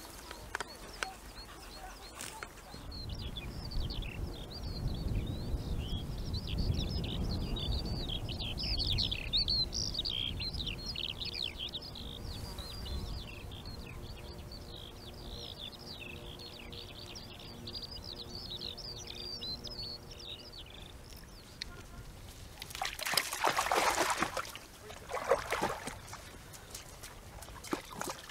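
A songbird singing one long, unbroken song of rapid high warbling notes, over a low rumble in the first half. Near the end come a few loud, short rushes of splashing water.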